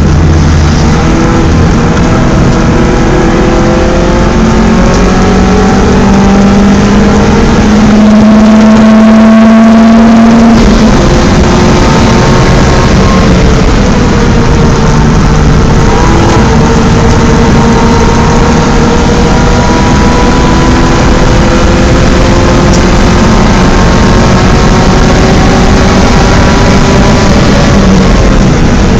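BMW 318is four-cylinder engine under hard acceleration, the revs climbing for about ten seconds. The revs drop with a gear change about ten seconds in, then climb slowly through a long pull in the next gear.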